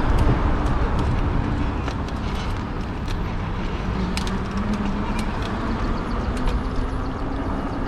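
Wind rush and road noise from riding a fat-tire e-bike along a street with car traffic, a steady low rumble with scattered small clicks.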